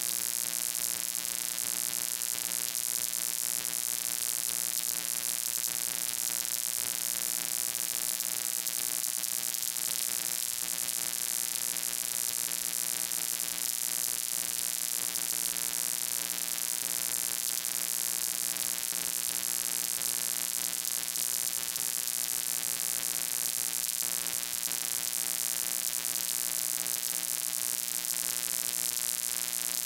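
Steady electrical hum with many overtones under a loud, even static hiss, unchanging throughout.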